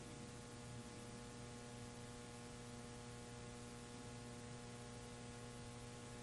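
Faint steady electrical mains hum, a low hum with several overtones.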